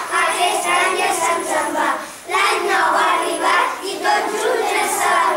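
A group of young children singing together in unison, in phrases with a short breath about two seconds in.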